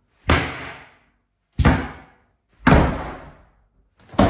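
Four sharp slams, a second or so apart, of kitchen cupboard doors and a stainless steel bin lid shutting, each bang dying away quickly. They are close-miked raw recordings to be slowed and processed into sonic boom samples.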